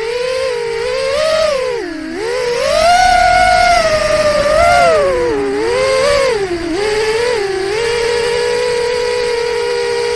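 A 4-inch FPV quadcopter's FPV Cycle 2203 3450kv brushless motors and Gemfan 4052 props whining, heard from a camera mounted on the quad. The pitch rises and falls with the throttle, dips sharply about two seconds in, then holds steady for the last couple of seconds.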